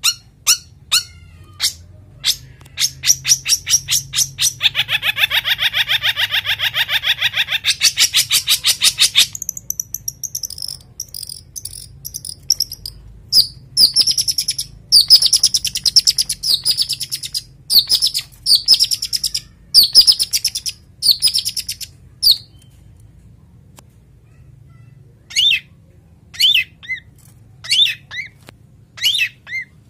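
Male long-tailed shrike (cendet) in breeding condition calling: a run of sharp repeated notes, then a fast harsh trill that runs for about six seconds. After that comes loud high-pitched chattering, a pause of a few seconds, and a few short notes near the end.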